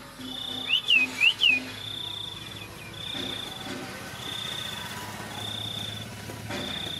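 A high buzzing chirp repeats about once a second. About a second in, four quick, loud squeaky calls, each curving down in pitch, come close together.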